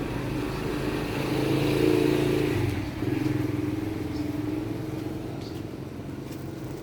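A motor vehicle's engine running as it passes, growing louder about two seconds in and then slowly fading away.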